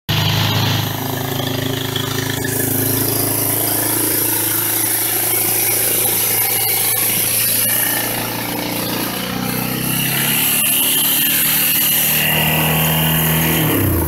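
Yamaha ATV's air-cooled single-cylinder engine running steadily, its speed shifting a little about eight seconds in and again near the end.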